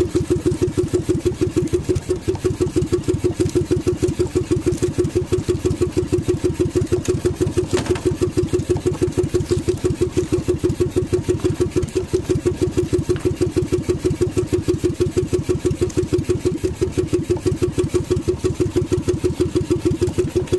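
Small gasoline engine of a motorized outrigger boat running steadily under way, with an even, rapid beat that holds the same pace throughout.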